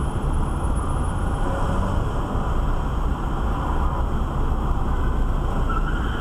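Steady engine and road noise of a moving car, picked up by a dashcam.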